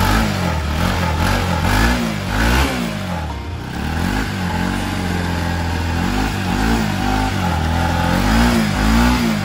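Bajaj Pulsar NS200's single-cylinder engine running, with the throttle blipped again and again, each rev rising and falling back in pitch.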